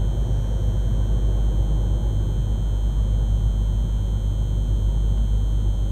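Steady low rumble of an unseen class 153 diesel railcar's engine, with faint steady high-pitched tones above it.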